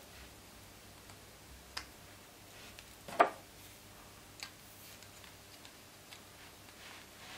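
Scattered small clicks and taps from a 3D-printed plastic handpiece and its cable being handled, with one louder knock about three seconds in.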